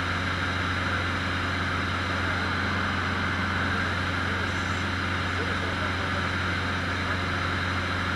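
Cessna 150's Continental O-200 four-cylinder engine and propeller in flight, a steady low drone mixed with rushing air noise as heard inside the small cabin.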